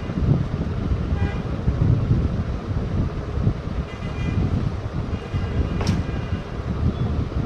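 Steady low rumble of background road traffic with a few short, faint horn toots, and one sharp click near the end.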